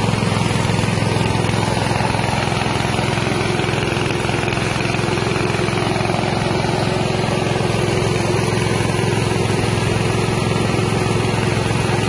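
Mini rice milling machine running steadily, its small 6.5 hp engine driving the mill as paddy is milled into rice.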